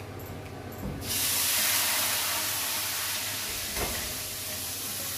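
Tap water pouring onto a hot, scorched cooking pan in a steel sink, hissing into steam; the hiss starts suddenly about a second in. A small knock of the pan against the sink comes about two-thirds of the way through.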